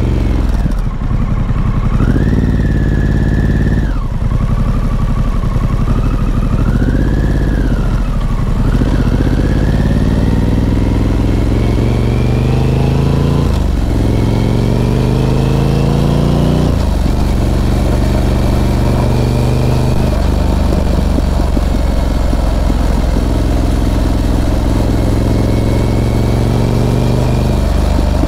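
Harley-Davidson Pan America's Revolution Max V-twin engine under way, revs rising and falling over the first several seconds, then climbing and dropping as it shifts up twice around the middle, and running at a steady pace after that.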